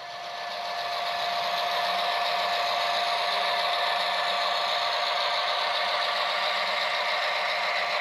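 HO-scale model diesel locomotives running past on the track, a Bachmann GP7 leading: a steady mechanical whir and rattle with a constant whine. It grows louder over the first second as they come into view.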